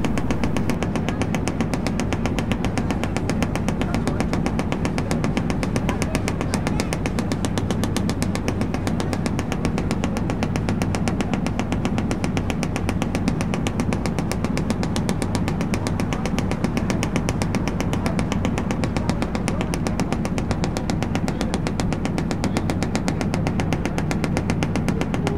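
Diesel engine of a 1948 single-screw harbour tug running under way, a loud, steady, rapid and even beat of exhaust strokes over a low hum.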